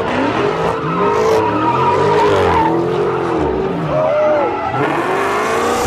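A car drifting: the engine revving up and down over and over, with tire squeal, the revs climbing again near the end.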